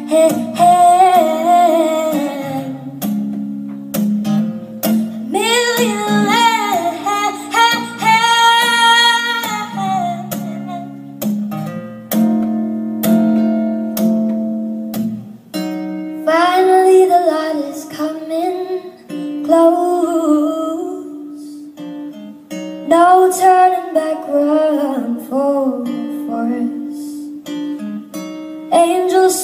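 A song: a woman singing gliding, held vocal lines over plucked acoustic guitar.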